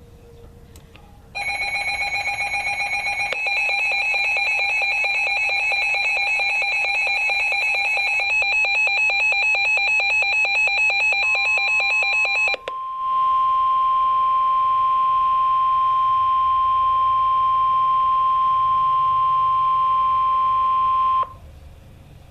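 Emergency alert tones for a severe thunderstorm warning. A loud, fast-pulsing electronic alarm runs for about eleven seconds, then a steady single tone near 1 kHz, the weather radio's warning alarm tone, holds for about eight seconds and cuts off suddenly.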